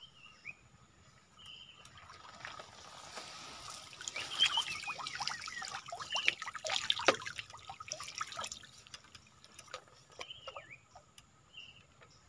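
Water trickling and dripping as a bamboo lift net is raised out of a stream: a patter of drops and small splashes that builds about two seconds in, is busiest in the middle, and thins out toward the end.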